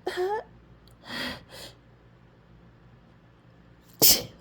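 A woman's breath hitching as she fights a sneeze: a short voiced gasp with a gliding pitch, then two breathy sniffs. About four seconds in comes a sudden, very loud sneeze burst.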